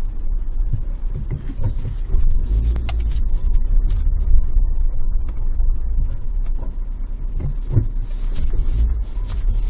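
Suzuki Jimny Sierra driving on a dirt forest road, heard from inside the cabin: a steady low rumble of engine and tyres with scattered knocks and rattles as it goes over the rough surface.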